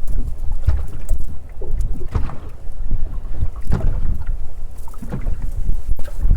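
Bass boat under way on the lake: a loud low rumble with wind buffeting the microphone, and thuds every second or so as the hull meets the water.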